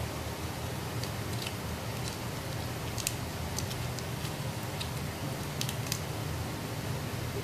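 Light rustling and crinkling of glossy plastic ribbon strips being tucked and pulled through a woven ribbon piece by hand, with a few short clicks over a steady low room hum.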